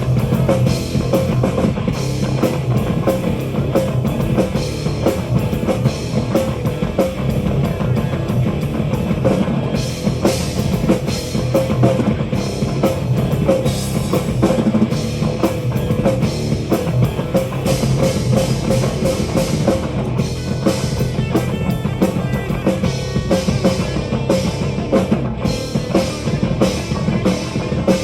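A live metal band playing an instrumental passage with no singing: a drum kit keeping a steady beat under electric guitars.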